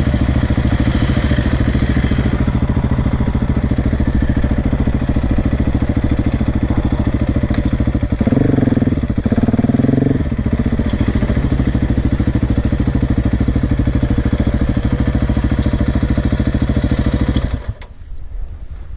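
KTM enduro dirt bike engine running at a steady speed, louder for about two seconds in the middle, then cutting off suddenly near the end, leaving a few faint mechanical ticks.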